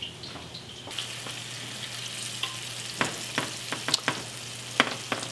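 Flour-dredged pork chops sizzling in hot oil and butter in a frying pan, a steady hiss with sharp pops and crackles now and then.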